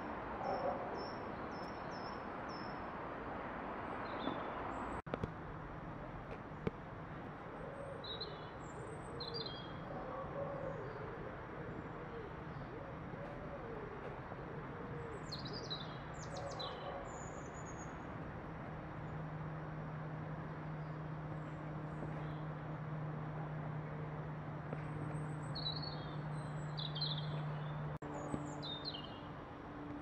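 European robin singing short phrases of thin, high notes, with pauses of a few seconds between them. Behind it runs a background rumble and a steady low hum that grows louder about two-thirds of the way in.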